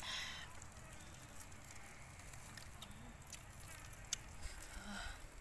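Faint eating sounds: people chewing and handling food in rustling banana-leaf wrappers, with scattered small clicks and a short rustle at the start.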